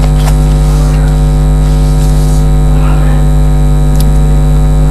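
Loud, steady electrical mains hum, a buzz with many overtones, on the broadcast audio. Faint clicks come about a quarter of a second in and again about four seconds in.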